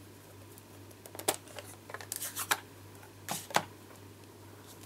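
Sharp plastic clicks and knocks from a Stampin' Up! ink pad's hinged plastic case as it is handled, opened and set down. One click comes about a second in, a quick cluster follows around two seconds, and two more come near three and a half seconds.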